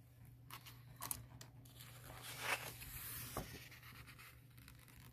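Faint rustle of a picture book's paper page being turned by hand, with a few light ticks of paper handling and a rustling swell about halfway through.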